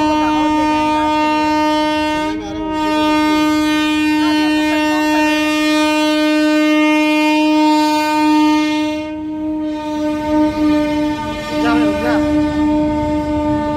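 Diesel locomotive horn sounding one long, steady-pitched blast. It dips briefly about two and a half seconds in and loses some brightness about nine seconds in, with crowd voices faint beneath it.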